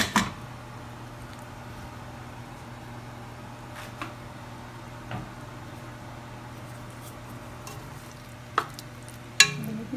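A sharp metal clank from the pressure cooker's lid right at the start, then a steady low hum, with a few light knocks of a spatula against the metal pot near the end.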